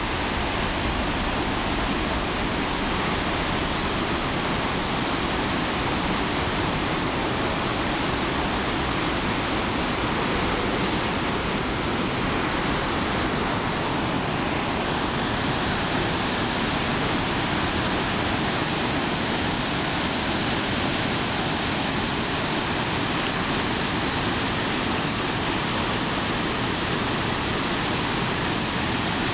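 Steady rushing of a waterfall pouring through a rocky gorge, an unbroken wash of water noise.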